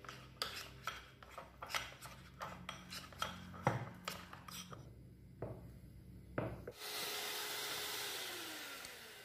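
A spatula scraping and tapping against a glass bowl while melted chocolate is folded into whipped cream: a run of light, irregular clicks and scrapes. About seven seconds in these give way to a steady hiss that slowly fades.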